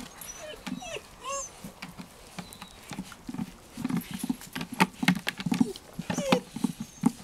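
German Shepherd puppies whining in short high squeaks, with irregular knocking and clattering that gets busier after a few seconds as they jostle around a plastic feeder.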